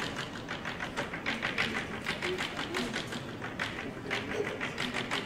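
Chalk tapped rapidly against a blackboard, dotting many points: a quick, irregular run of sharp taps, several a second.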